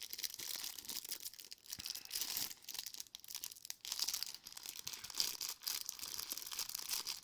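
Thin plastic bags crinkling and tearing as small LEGO minifigure part bags are handled and torn open, a steady irregular crackle.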